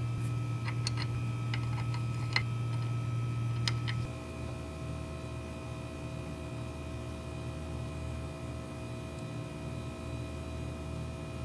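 A steady low hum, with a few light, sharp metal clicks in the first four seconds as the brake drum and hub are handled; about four seconds in the hum drops lower and carries on alone.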